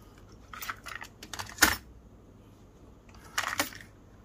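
A few sharp clicks and clatters of small hard parts being handled. The loudest click comes about one and a half seconds in, and a short cluster of clicks comes near the end.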